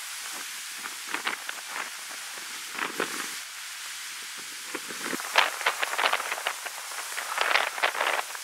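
Dry leaves and brush crackling and rustling close to the microphone in short, irregular snaps, busiest in two clusters in the second half.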